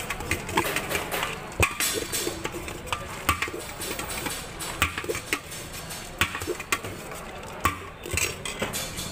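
A metal spoon clinking and scraping against a stainless-steel vessel as a spiced street snack is stirred and tossed inside it, in irregular sharp knocks.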